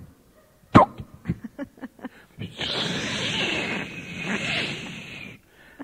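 A sharp pop about a second in, a few small ticks, then about three seconds of steady hissing, the sound of a cork lifted off a bottle and its contents fizzing.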